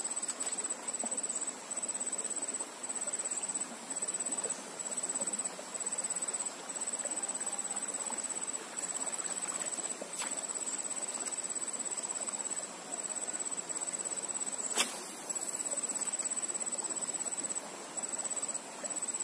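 Insects trilling: one high-pitched pulsing trill that breaks off briefly every second or so, with a single sharp click about fifteen seconds in.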